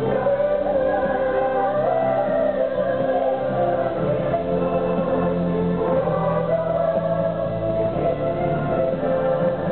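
Show music with a choir singing a slow melody in long held notes over a steady accompaniment.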